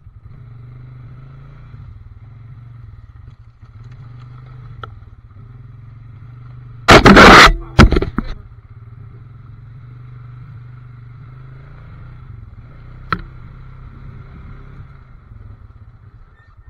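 ATV engine running steadily at low revs on a muddy trail, with a loud burst of noise about seven seconds in and two shorter knocks just after as the machine drives into a water-filled rut.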